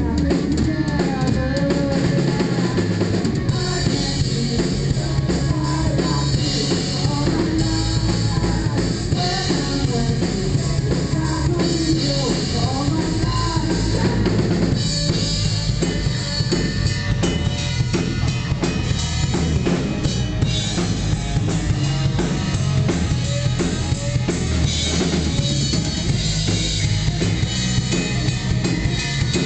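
Live rock band playing loudly: electric guitar, electric bass and a full drum kit with kick, snare and cymbals driving a steady beat.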